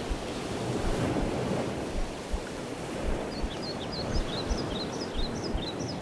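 Surf washing onto a sandy beach, with wind buffeting the microphone in low thumps. Quick, high chirps repeat through the second half.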